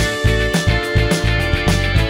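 Background music: a guitar-led band track over a steady beat.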